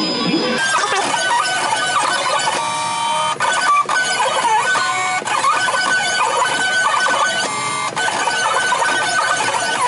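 Black Cat Cougar cutting plotter drawing letters with a pen: its stepper motors whine in quick rising and falling sweeps and steady tones that start and stop over and over as the pen carriage and the media rollers move.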